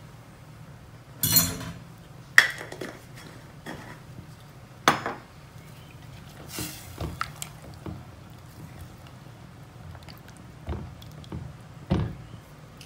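A spatula stirring sliced mushrooms in a ceramic pot, knocking and scraping against the pot's sides at irregular moments, with a low steady hum underneath.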